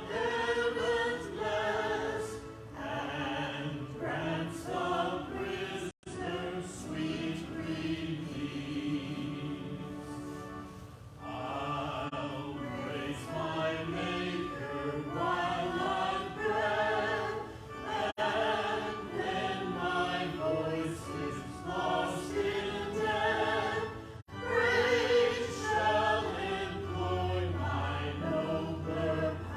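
A church choir singing a hymn or anthem, several voices with vibrato, held continuously.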